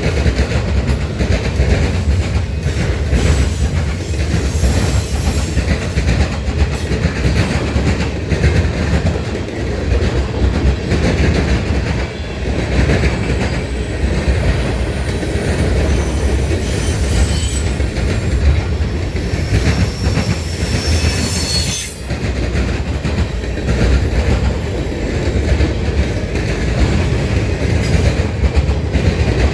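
A train rolling past: steady wheel and rail rumble with clicking over rail joints, and high wheel squeal coming and going, strongest through the middle.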